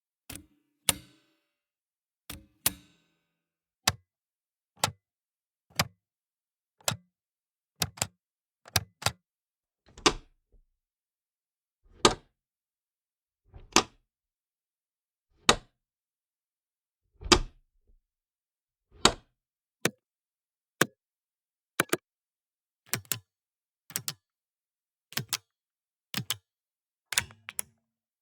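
Pushbutton switches being pressed one at a time: short sharp clicks every second or two with silence between, many of them a quick double click.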